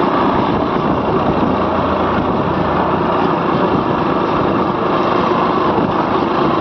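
Motorcycle engine running steadily at riding speed, with a constant rushing noise.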